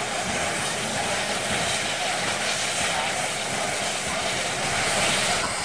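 Steady hiss of steam from a standing steam locomotive.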